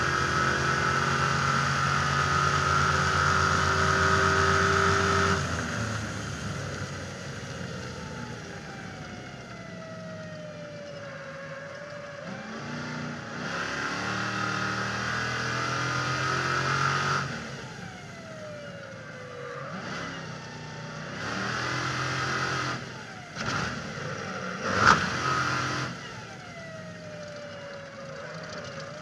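Stadium Super Truck's race engine at full throttle, then lifting off with the revs falling before pulling hard again, several times over. There is one sharp bang about 25 seconds in.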